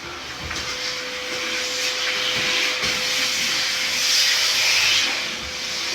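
Steady hissing from cage-cleaning equipment with a faint steady hum under it, growing louder about four seconds in.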